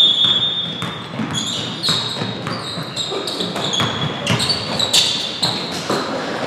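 Basketball bouncing on a hardwood gym floor, with sneakers squeaking in several short, high chirps and players' feet thudding as they run.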